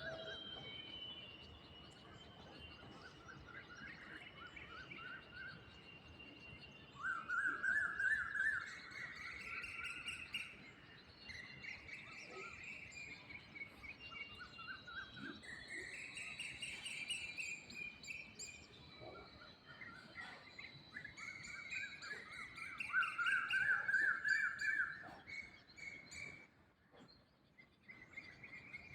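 Birds singing outdoors in repeated fast trilled phrases, the loudest bursts coming twice, with a thin steady high tone and faint outdoor hiss underneath.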